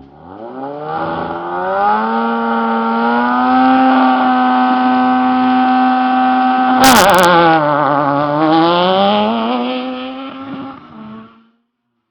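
Off-road rally vehicle's engine revving up and held at high revs under full throttle, with a sharp loud crack about seven seconds in. The revs then dip and climb again before the sound fades and cuts off near the end.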